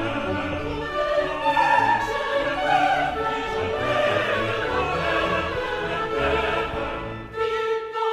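Orchestral classical music with operatic singing. Near the end a single note is held steady.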